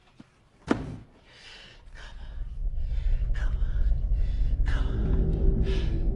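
A man's gasping breaths, about one a second, over a low rumble that swells from about two seconds in. A single sharp knock comes just before the first second.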